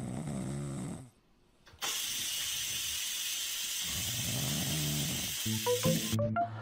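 Sleeping kitten snoring, a couple of slow rasping breaths with a steady hiss between them. A tune of short notes starts near the end.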